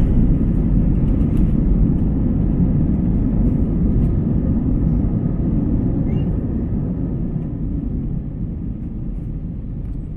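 Jet airliner's landing rollout heard from inside the cabin, with the wing spoilers raised: a loud, steady low rumble of engines and wheels on the runway that gradually fades as the plane slows.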